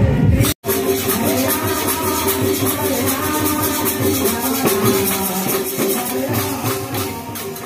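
Kirtan music played live: barrel drums and jingling hand cymbals in a fast, even rhythm, with a melody line over them. The sound cuts out completely for an instant about half a second in.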